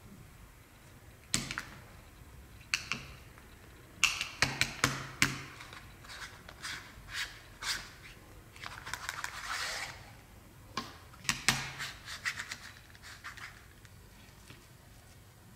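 Scattered plastic clicks and taps, in small clusters, from Barbie fashion dolls being handled and moved, with a short scratchy rustle near the middle.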